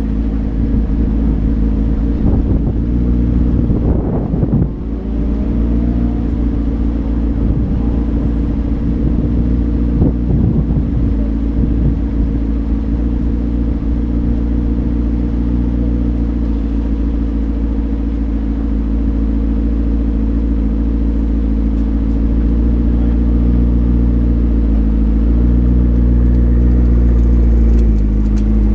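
McLaren 12C's twin-turbo 3.8-litre V8 idling steadily at a standstill, picked up by a camera mounted on the car. A few short knocks come about four seconds in, and the engine note gets slightly louder after about 25 seconds.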